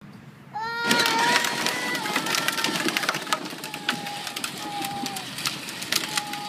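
A Power Wheels Jeep ride-on toy's electric motor and gearbox whining as it starts off, rising a little in pitch as it picks up speed about half a second in. The plastic wheels crackle and click over rough, cracked asphalt.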